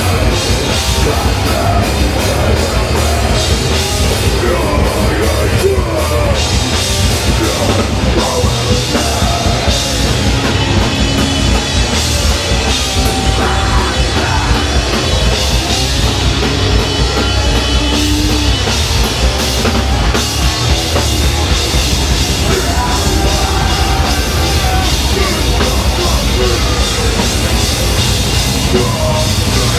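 Live punk/metal band playing loud and steady: distorted electric guitars, bass guitar and a drum kit.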